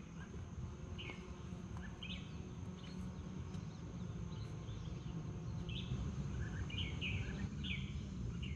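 Outdoor ambience: birds giving short scattered chirps every second or so, over a steady high-pitched hum and a low rumble.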